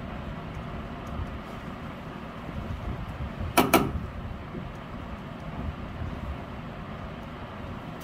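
Steady low background rumble, with two sharp knocks in quick succession about three and a half seconds in.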